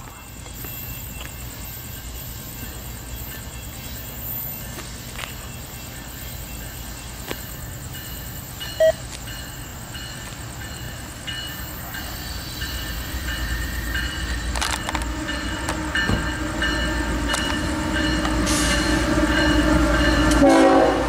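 Diesel-hauled freight train approaching: a low locomotive rumble grows steadily louder as it nears, with a horn sounding near the end.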